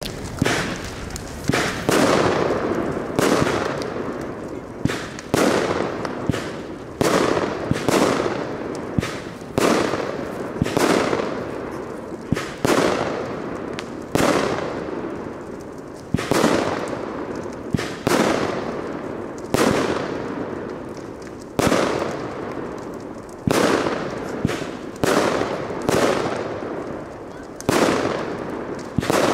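Weco "Stars of the Night" category 3 firework battery firing shot after shot, about one every one to two seconds. Each shot is a sharp bang that trails off over about a second.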